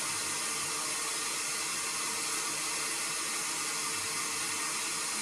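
Hot air rework station blowing a steady hiss of air, with a faint constant hum.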